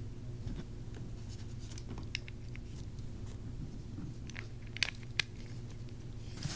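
Faint small clicks and ticks as a 1/8-scale RC buggy shock is handled and its vented cap screwed on, over a steady low background hum. Two sharper clicks come close together near the end.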